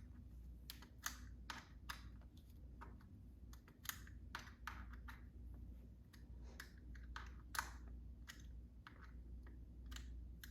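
Quiet, irregular light clicks and taps, about two a second, from a hand tool working the bicycle's stem bolts as they are tightened.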